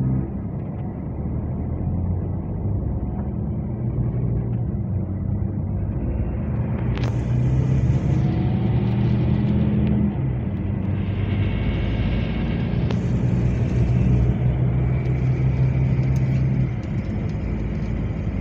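Coach bus engine and road noise heard from inside the passenger cabin while driving, a steady low drone that grows louder a few seconds in and eases near the end. A hiss comes in sharply twice around the middle.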